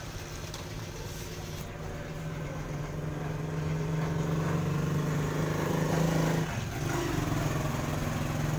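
Battery-powered toy train locomotive running on plastic track: its small electric motor and gears hum steadily, louder through the middle and dipping briefly about six and a half seconds in.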